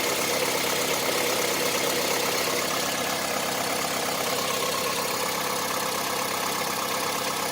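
Honda CR-V 2.4 four-cylinder petrol engine running steadily with a fast, diesel-like knock, held in Drive against the handbrake so it is under light load. It is the cold-engine knock from the left side that the owner says is not the valves and fades as the engine warms.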